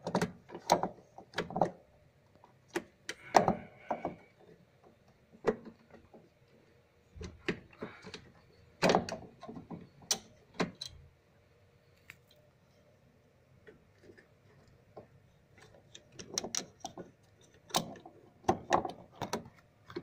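Irregular clicks and knocks of plastic and metal parts as a washing machine's pulley assembly is handled and worked back onto its transmission gear and shaft, with a quieter pause near the middle.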